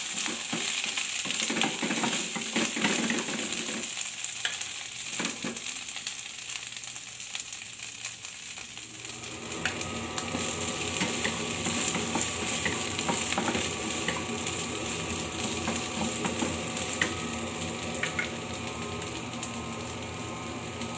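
Green beans and a little meat sizzling in a non-stick wok over a gas flame, turned with a wooden spatula that scrapes against the pan in the first half. About halfway through, a steady hum with several tones joins the sizzle.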